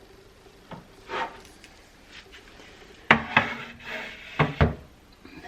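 Food cans being handled and set down on a pantry shelf: a series of knocks and clunks, a few light ones in the first second or so and louder ones from about three seconds in.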